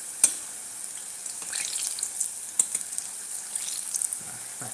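Aubergine slices deep-frying in hot oil in a steel pot, a steady sizzle, with clicks of metal tongs against the pot as the slices are turned; one sharp click about a quarter second in.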